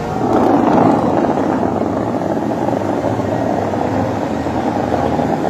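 Dubai Fountain's water jets shooting up and their spray falling back onto the lake: a loud, steady rushing noise that swells about half a second in.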